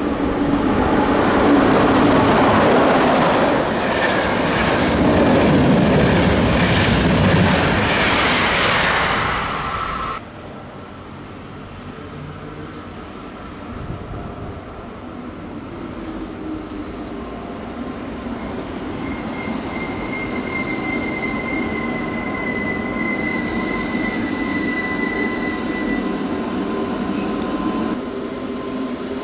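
A train hauled by an ÖBB class 1144 electric locomotive running through the station: loud rolling noise with wheel squeal for about ten seconds, cutting off suddenly. After that comes a quieter steady running sound with a thin high tone in the middle.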